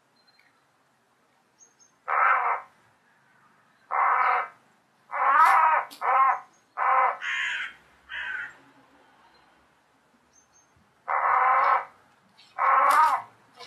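Crow cawing repeatedly, about nine calls in irregular groups with a pause of a few seconds in the middle, while it struggles pinned under a hawk: distress calls.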